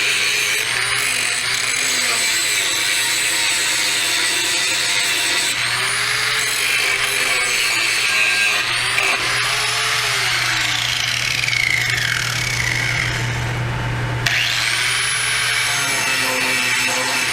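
Angle grinder grinding paint and rust off a steel plow moldboard to bare metal, its pitch dipping and rising as it bears on the steel. About three-quarters of the way through it winds down and then spins back up, over the steady hum of a running air compressor.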